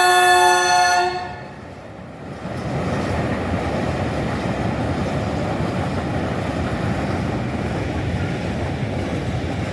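A train horn blowing one loud held note that stops about a second in, followed by the steady rumble of a train running past.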